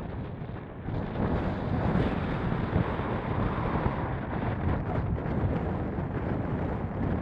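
Strong wind of 25 to 30 mph buffeting the camera's microphone: a heavy, gusty rumble that grows louder about a second in.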